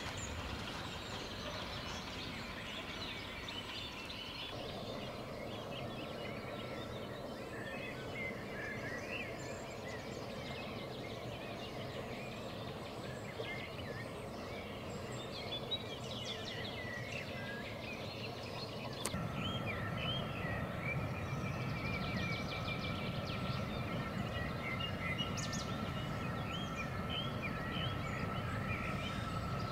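Songbirds chirping over a steady outdoor background. About two-thirds of the way through, a low rumble and a steady high whine come in as a train approaches.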